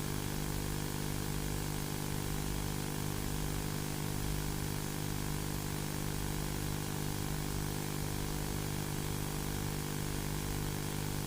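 Steady low electronic drone: a hum of several stacked low tones over a constant hiss, holding unchanged without any breaks or accents.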